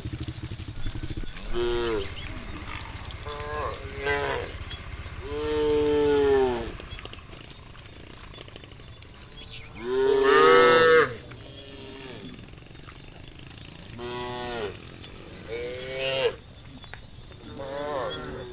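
Cattle mooing: about seven separate moos from the herd, each call rising then falling in pitch, the loudest one just past halfway.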